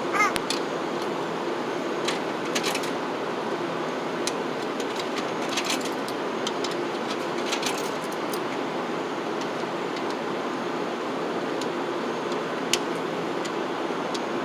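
Steady outdoor background hum, like nearby traffic, with a few sharp metallic clicks and small clatters as an old coin pay phone is handled and dialed.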